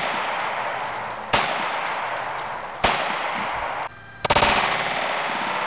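Glock 22 pistol firing .40 S&W Hornady TAP FPD 155-grain hollow points down into a container of water: single shots about a second and a half apart, then a quick run of several reports about four seconds in.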